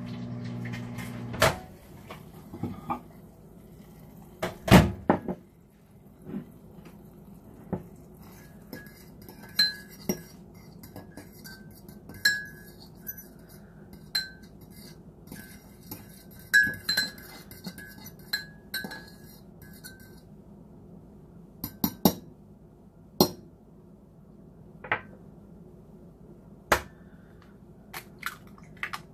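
A microwave oven's hum cuts off about a second and a half in. A metal fork then clinks and scrapes against a ceramic mug, stirring melted cream cheese, and near the end a few sharp taps crack an egg on the mug.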